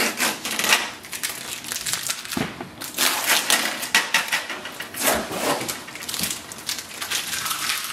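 Blue protective packing tape being peeled off a laser printer's plastic case and crumpled up in the hand, a dense, uneven crinkling and crackling.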